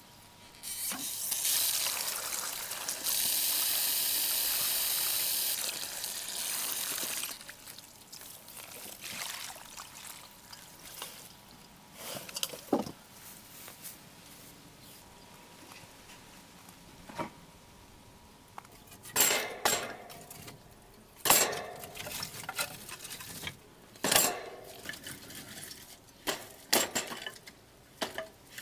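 Water running for about six seconds, then scattered clinks and knocks of kitchen things being handled, several in quick succession near the end.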